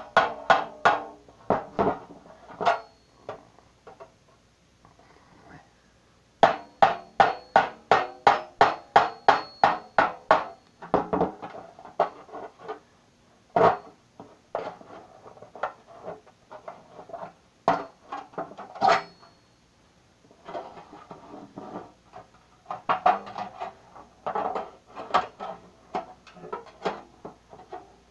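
Knife blade being struck to cut through the lid of a metal cookie tin: runs of sharp metallic strikes, about three or four a second, with the tin ringing after each, broken by short pauses.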